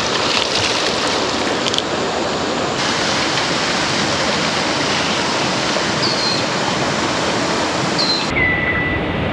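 Steady rush of flowing water, an even hiss with no breaks, with a couple of faint high whistles near the end.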